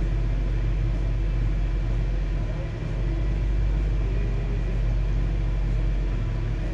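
Steady low mechanical rumble of the Snobear's engine running, heard inside the cabin.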